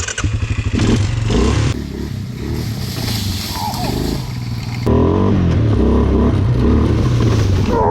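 Suzuki Vinson 500 ATV's single-cylinder engine running under throttle as it is ridden off-road. It gets louder suddenly about five seconds in.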